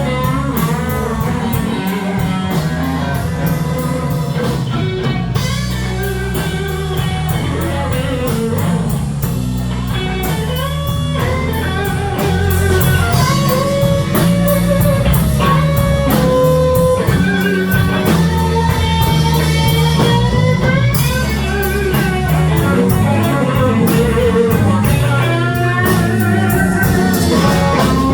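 Live slow blues: an electric guitar plays bending lead lines over bass and drums, a little louder from about halfway on.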